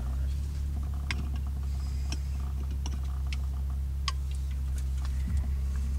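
Steady low drone of an Infiniti G35's 3.5-litre V6 engine running, heard inside the car's cabin, with scattered light clicks and ticks on top.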